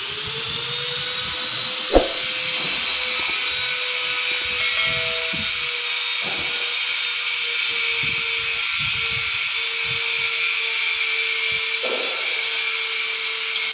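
An electric motor running steadily, with a hiss and a steady whine that rises as it comes up to speed at the start. A sharp click about two seconds in and a softer one near the end.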